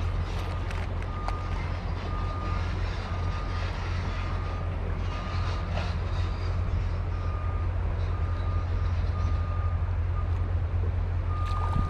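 A vehicle's reversing alarm beeping steadily at about one high beep a second, over a constant low rumble and rush of noise.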